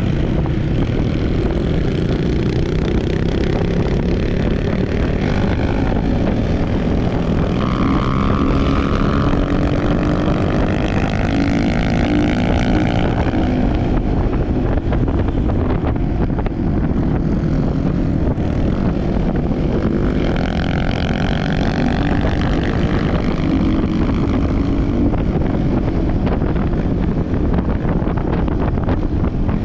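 Off-road trail motorcycle engine running under way, revving up and easing off twice, over a constant loud rumble.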